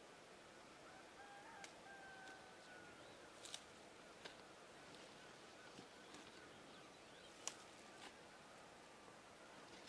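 Near silence: quiet outdoor air with a few faint sharp clicks and snaps from bamboo tongs plucking nettle tops, and a faint drawn-out call from distant fowl between about one and three seconds in.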